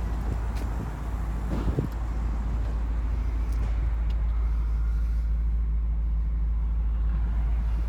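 The Audi RS4's 4.2-litre V8 idling steadily, with wind rumble on the microphone. A light knock comes just under two seconds in.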